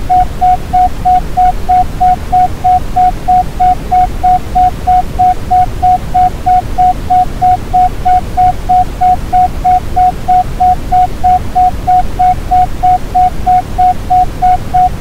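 Synthesized isochronic tone: a single steady mid-pitched beep pulsing on and off about three times a second (the 3.14 Hz 'Pi' rate), over a constant deep, even hiss of Brownian noise.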